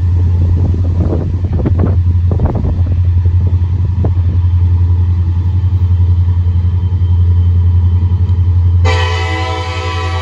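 Kansas City Southern diesel locomotives rumbling as they move a string of covered hopper cars, with a few knocks from the train between about one and two and a half seconds in. Near the end the locomotive's air horn sounds, a steady chord of several notes that holds.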